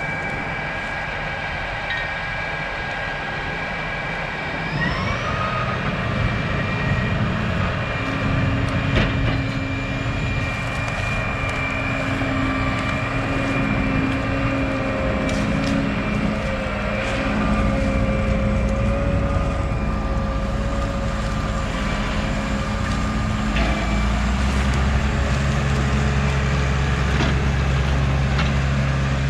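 Heavy harvest machinery running steadily. Its engine revs up about five seconds in, and a deeper drone joins near the end.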